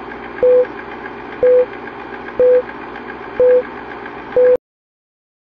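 Film-leader countdown sound effect: five short mid-pitched beeps, one a second, over the steady rattling whir of a film projector running. It all cuts off suddenly just after the fifth beep.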